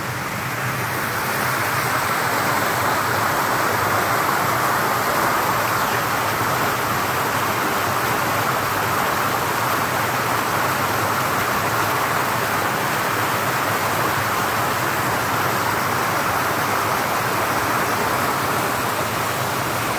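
Water pouring steadily over a small artificial rock waterfall into a pool, a constant rush of splashing water that grows a little louder over the first couple of seconds.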